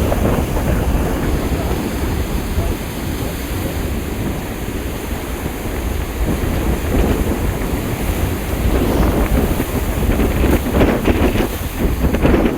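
Cyclone-strength wind buffeting the microphone in a continuous heavy rumble, gusting harder in the second half, over the noise of rough sea.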